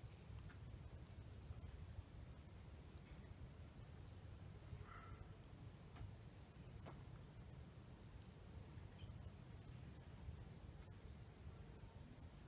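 Near silence outdoors: faint, steady high-pitched chirring of insects over a low background rumble, with a few faint ticks.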